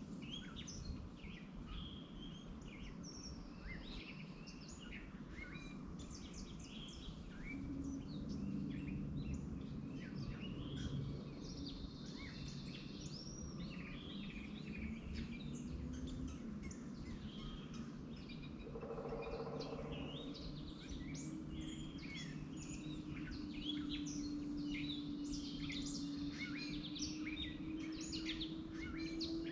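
Many small birds chirping and twittering in quick, overlapping short calls, over a steady low background hum; in the last few seconds a low tone slowly rises in pitch.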